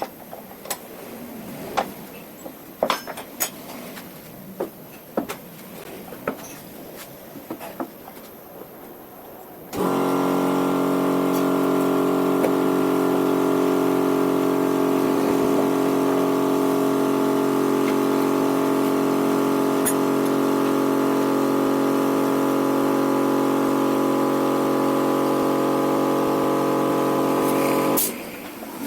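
A few scattered clicks and knocks, then about ten seconds in an electric motor starts, most likely the homemade 15 cm wood planer's motor, and runs freely at a steady, unchanging pitch with no wood being cut. It cuts off near the end.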